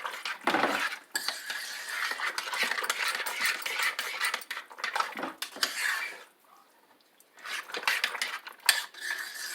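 A spoon stirring thick macaroni and cheese in a crock pot, with repeated scraping and clinking against the pot. It breaks off for about a second partway through.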